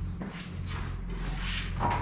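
A steady low electrical-sounding hum with faint rustling and light knocks of parts being handled.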